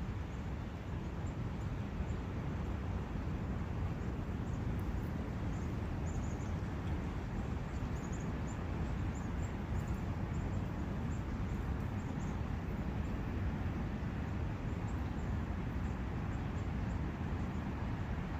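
Steady rushing of a forest brook, with short high bird chirps scattered through the first half and a few more later.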